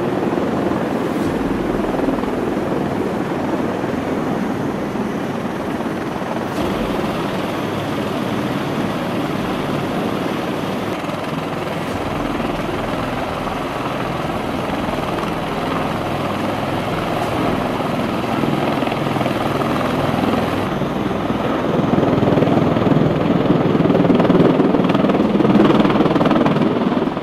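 V-22 Osprey tiltrotor in helicopter mode, its twin proprotors and turboshaft engines running loud and steady as it hovers low over and sits on a flight deck. The tone shifts abruptly a few times, and the sound grows louder over the last few seconds.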